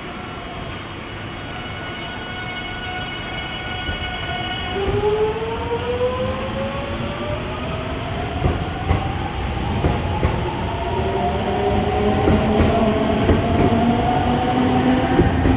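JR Central 373 series electric train pulling away, its inverter whining. The whine starts as a few steady high tones, then from about five seconds in becomes rising tones as the train gathers speed. Rail-joint clicks grow louder as the cars pass.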